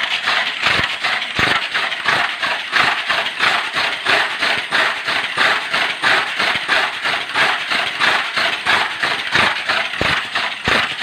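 Tamiya mini 4WD car with a tuned ('dinamo setan') motor running fast along a plastic track: a steady high-speed motor whir mixed with a rapid, regular clatter of the rollers and wheels against the track walls and joints.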